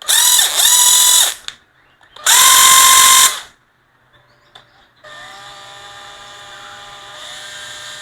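National cordless drill (model 6470) run with no load on a test: two short loud whirring bursts of the motor and gearbox, then a longer, much quieter and lower-pitched run that rises a little in pitch near the end.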